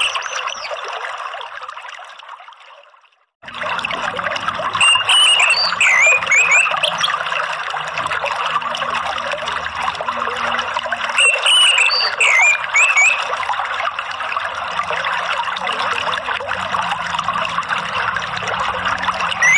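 Steady flowing water fades out over the first three seconds, stops for a moment, then starts again, as a looped nature-sound recording. Over the water, bird chirps come in short runs about five, eleven and nineteen seconds in.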